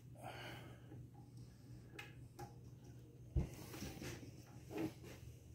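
A silicone spatula scraping thick soap batter from the inside of a stainless steel pot, with faint scattered taps and a dull knock about three and a half seconds in, then a smaller one near the end.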